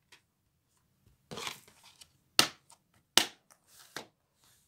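Plastic DVD case being handled: a brief rustle about a second and a half in, then two sharp plastic clicks and a smaller one near the end, as the case is snapped shut and moved.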